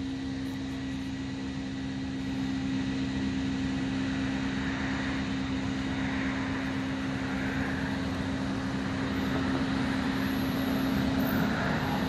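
Steady mechanical hum with a constant low tone, a little louder from about two seconds in.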